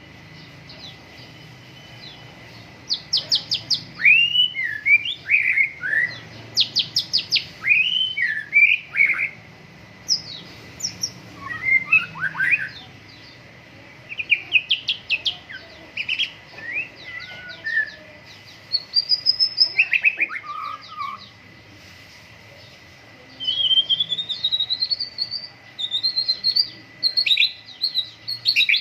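White-rumped shama singing: varied phrases of gliding whistles and rapid trills, with short pauses between bursts.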